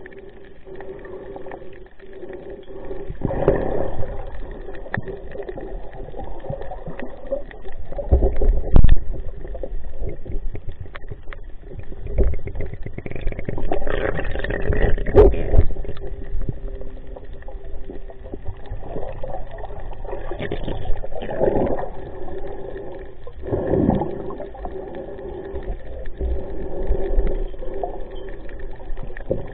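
Water sloshing and gurgling, muffled, swelling up every few seconds over a steady faint hum.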